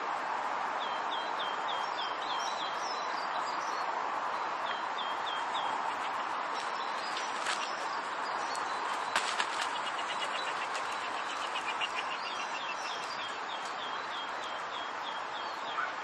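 Small songbirds calling over a steady rush of running water. There are several series of short, high, repeated notes and a fast trill in the middle. A few sharp clicks come near the middle.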